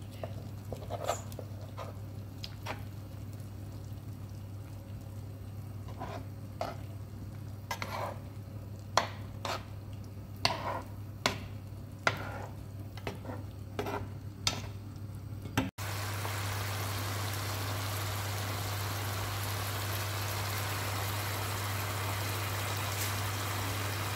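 A spoon clicking and scraping against a nonstick pan as chicken pieces are turned in their broth, a dozen or so light knocks. About two-thirds through, after a brief dropout, this gives way to a steady bubbling hiss of the chicken and onions simmering in the broth. A low steady hum runs underneath throughout.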